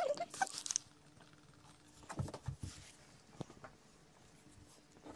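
Faint soft thumps and scattered clicks as a cat moves about on a coir doormat beside its food dishes.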